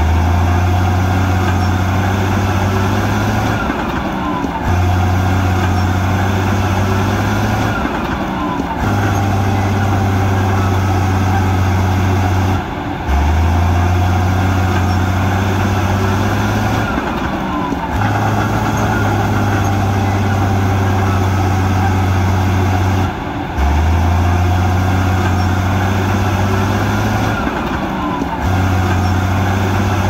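Heavy diesel engine of a working bulldozer, running as a loud low drone that dips briefly about every four to five seconds.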